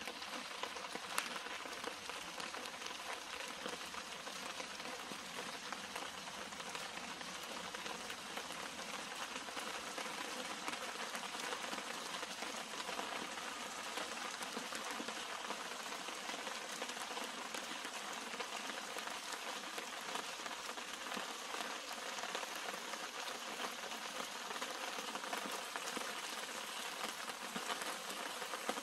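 Steady rain falling on the leaves and flower clusters of garden shrubs: an even hiss of countless small drops, with one louder drop about a second in.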